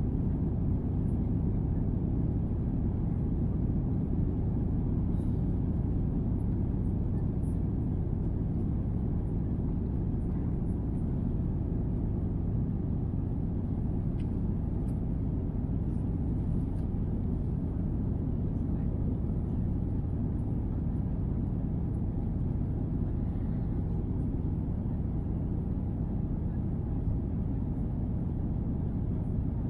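Steady low rumble of an Airbus A350-900 cabin in the climb after takeoff: engine and airflow noise heard inside the cabin at a window seat.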